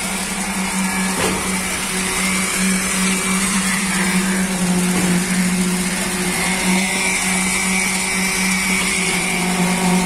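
Concrete-pour machinery running with a steady loud hum and a strong low drone: the concrete pump working, with poker vibrators buzzing in the fresh concrete.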